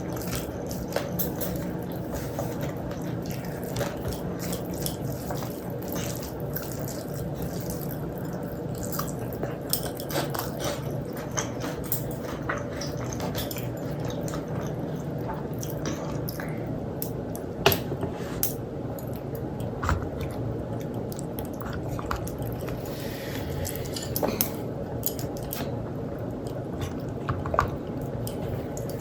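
Wet eating sounds: mouthfuls of rice and dal being chewed, with many short irregular clicks and smacks over a steady low background hum.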